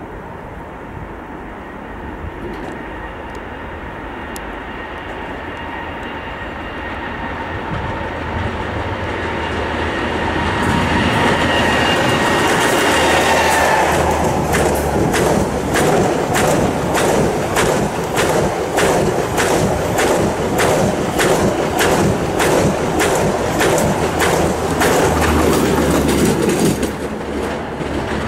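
EP20 electric locomotive and its 'Strizh' passenger train approaching and passing at speed. A steady whine with a rising rumble grows louder, and the whine drops in pitch as the locomotive goes by about halfway through. Then comes a rapid, regular clickety-clack of the carriages' wheels over the rail joints, about two clacks a second, which ends as the last car passes near the end.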